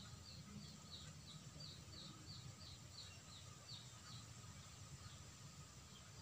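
Near silence with low background hum, over which a small animal gives a faint run of about a dozen short, high chirps, roughly three a second, stopping about four seconds in.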